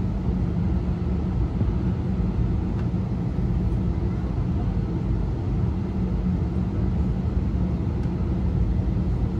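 Steady low rumble in the cabin of an Airbus A320 taxiing, heard from a window seat over the wing: the engines running as the aircraft rolls along the taxiway.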